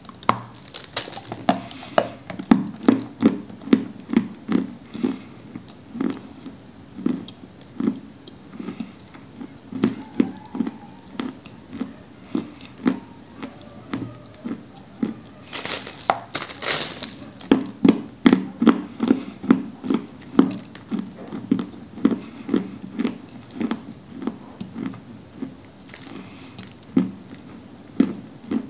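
Close-up biting and chewing of a dry, crumbly, dusty chunk of 'Orsk cream': sharp, dry crunches as pieces are bitten off about a second in and again around the middle, with steady chewing crunches about twice a second in between.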